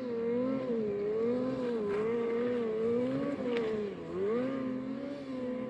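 Vehicle engine under load climbing a steep hill, its revs rising and falling quickly about twice a second as the throttle is worked.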